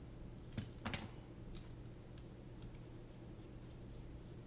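Small, sharp clicks of metal screws and standoffs knocking against carbon-fibre frame plates as a drone frame is handled and screwed together: two clear clicks a little under a second in, then a few faint ticks. A low steady hum runs underneath.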